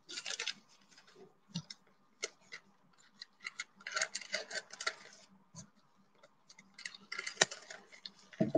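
Scissors snipping through a thin plastic zip-lock bag, heard as irregular bursts of crisp clicking and crackling, with the plastic crinkling as it is handled.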